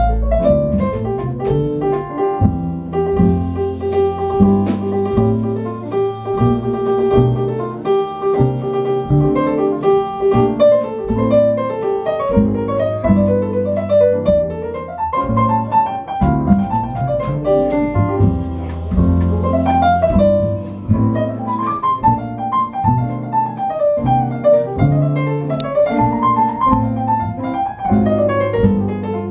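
Jazz piano playing quick runs over a double bass line, an acoustic jazz group at a sound check.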